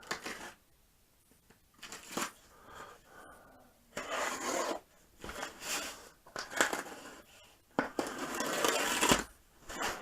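A cardboard shipping box being cut open and its flaps pulled apart: several separate scraping, rasping bursts of blade on packing tape and cardboard, the longest near the end.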